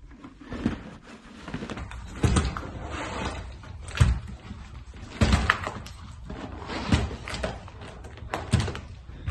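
Hard plastic ski boots being stepped into on a hardwood floor: a series of knocks and thuds, roughly one every second or so, with scuffing and rustling between them.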